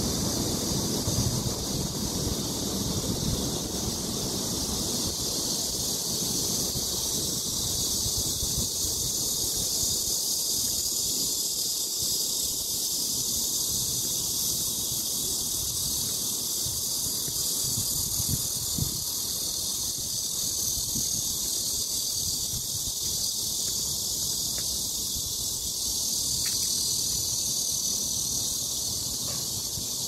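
Wind buffeting the phone's microphone in uneven low rumbling gusts, over a steady high-pitched drone of insects in the trees.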